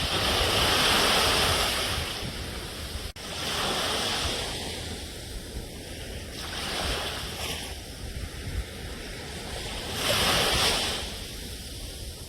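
Sea waves breaking and washing up a shore, a fresh surge of hiss about every three seconds over a steady low rumble, with the biggest waves at the start and around ten seconds in.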